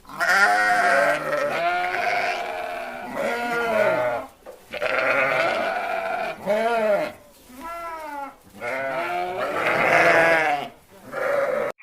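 A series of loud animal calls, each a short cry that rises and falls in pitch, repeated about ten times with brief pauses between.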